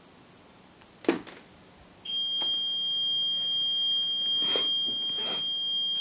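Honeywell Galaxy alarm system's exit-delay tone: a steady high-pitched beep starts abruptly about two seconds in and holds while the panel counts down its timed set. A short burst of noise comes about a second in, with two fainter ones near the end.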